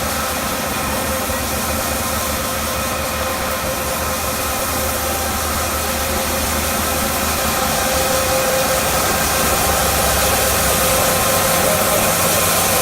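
Celery washing machine running steadily: a motor hum with a steady tone and a constant hiss, growing a little louder past the middle.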